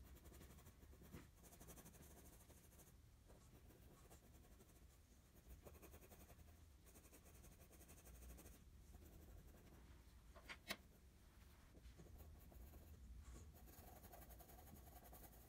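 Faint scratching of a graphite pencil on drawing paper, short repeated hatching strokes, with one sharp click about ten seconds in.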